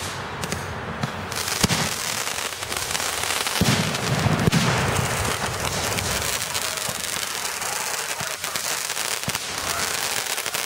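Fireworks missile batteries firing in rapid succession: a continuous dense barrage of pops and crackling, with the loudest bangs about one and a half seconds and about four seconds in.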